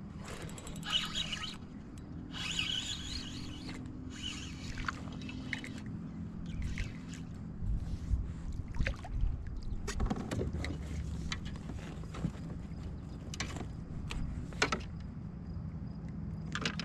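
Handling noises on a fishing kayak on the water: several swishing noises of about a second each in the first five seconds, then scattered sharp knocks, over a steady low hum.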